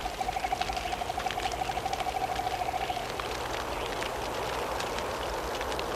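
Wood fire crackling and popping steadily. For the first three seconds a single wavering high tone is held over it, then it stops.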